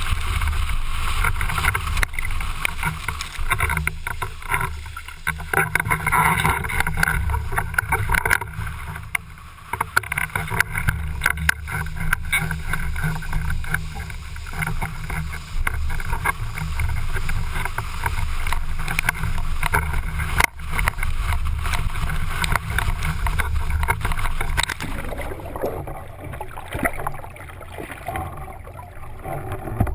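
Water rushing and spraying past a planing slalom windsurf board, heard from a camera mounted low on the rig, with a steady low rumble and crackling splashes. About 25 seconds in, the high part of the sound drops away and everything turns muffled as the camera dips under water.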